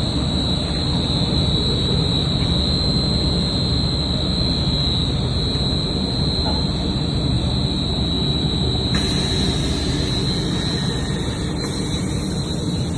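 High-speed heater mixer running: a steady mechanical roar with a constant high-pitched whine. About nine seconds in, a hiss joins it.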